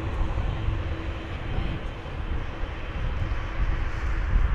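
Airbus A350-900's Rolls-Royce Trent XWB turbofans at takeoff thrust as the jet climbs away: a steady, deep jet rumble with a faint hum.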